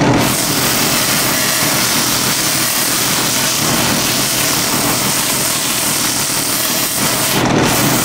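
A flex sander wheel running while a white myrtlewood carving is pressed against it: a loud, steady hiss of abrasive on wood over the running machine, briefly easing near the end. This is the final smoothing pass that gives the wood a quality, even finish for staining.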